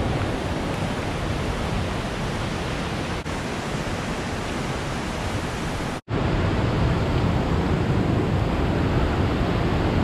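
Steady rush of falling water from Fudō Nanae Falls, a mountain waterfall, cut off for a split second about six seconds in.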